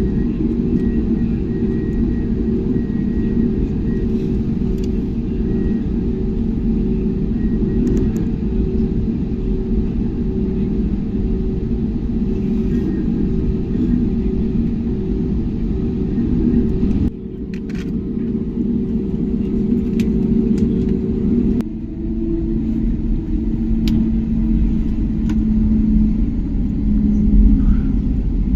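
Cabin noise inside an Airbus A320neo on the ground: a steady low rumble from the engines and airframe with a steady hum. The sound shifts abruptly about 17 and 22 seconds in and grows louder near the end.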